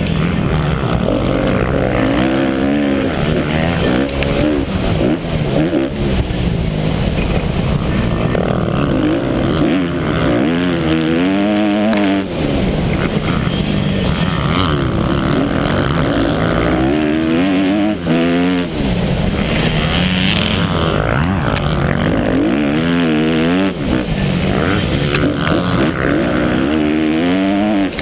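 Honda 250cc motocross bike's engine, heard up close from a camera mounted on the bike, revving hard and then backing off again and again as the rider accelerates, shifts and brakes around the track.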